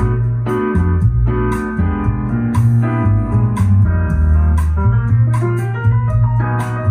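Recorded music with a steady beat, strong bass notes and keyboard, played through Klipsch Forte II loudspeakers and picked up on an iPhone's microphone.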